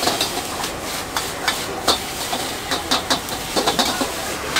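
Metal ladle scraping and clanking against a wok while stir-frying noodles, the clanks coming irregularly a few times a second over a steady hiss of sizzling food and gas flame.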